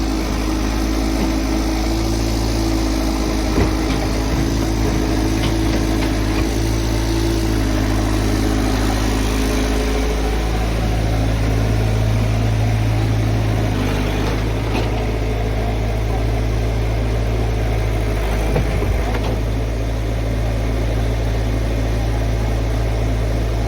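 Diesel engine of a Tata Hitachi amphibious excavator running steadily at an even pitch, with a higher tone in its sound dropping away about eight to ten seconds in.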